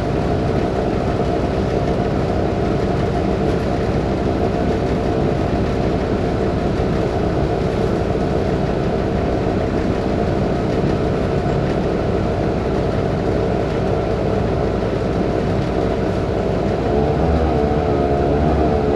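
Cummins ISBe turbo diesel engine of a BMC Belde city bus running steadily while the bus is under way, an engine the uploader calls faulty. Near the end its drone rises in pitch and loudness as the bus speeds up.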